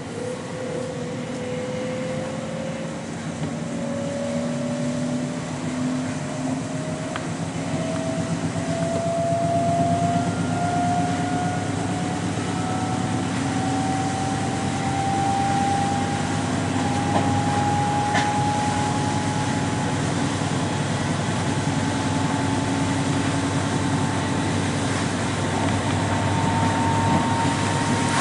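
Electric S-train heard from inside the carriage, accelerating: its traction motors give a whine that climbs steadily in pitch throughout, over the steady rumble of the wheels on the track.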